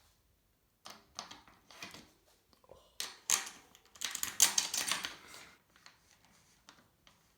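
Irregular clicks and rattles from tools and parts being handled on a mountain bike, thickest and loudest between about three and five seconds in.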